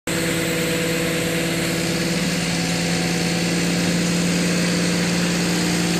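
Mobile crane's engine running steadily while it holds a suspended heavy load, its pitch shifting slightly about two seconds in.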